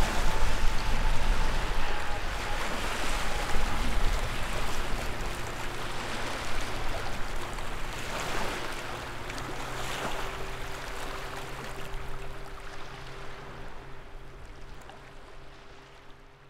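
Rushing noise like surf or wind, swelling and easing several times over faint sustained low tones, and fading out near the end.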